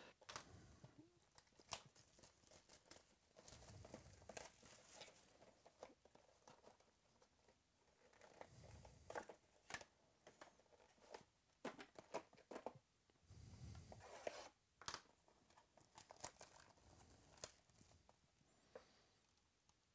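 Plastic shrink wrap being torn off a trading-card box and crumpled, a run of faint crackles, rustles and short tearing sounds.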